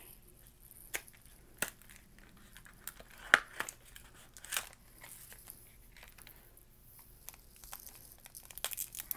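Foil trading-card booster pack wrapper crinkling as it is handled, in separate sharp crackles. The loudest comes about three and a half seconds in, and a quicker run of crackles follows near the end.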